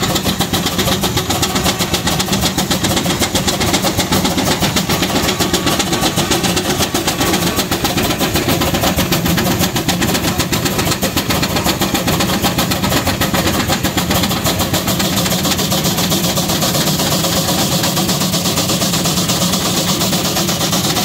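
Steam traction engine being worked hard, its exhaust beating out of the smokestack in a rapid, steady chuff.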